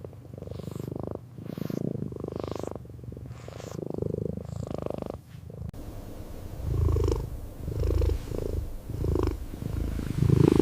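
Kitten purring, in rising and falling swells about once a second, growing louder and deeper about halfway through.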